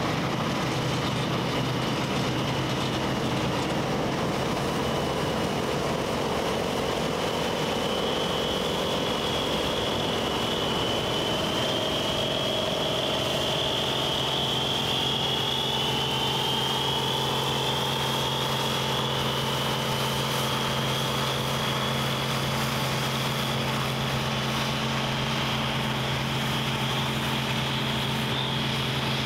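Claas Dominator 98 SL combine harvester running steadily while harvesting wheat. A constant low engine drone is topped by a high whine that drifts slightly in pitch.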